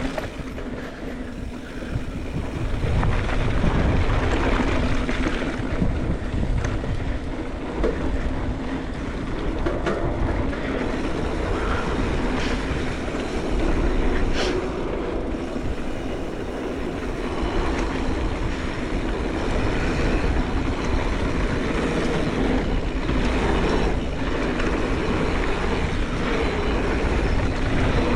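Mountain bike riding down a dirt trail: tyres rolling over the ground and the bike rattling steadily over the rough surface, with a few sharp clacks from hits along the way.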